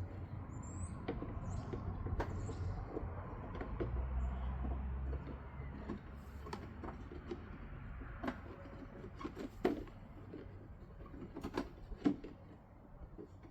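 Handling and fitting of plastic dragon-prop parts: rubbing, scraping and creaking, with scattered sharp knocks and clicks that come more often in the second half.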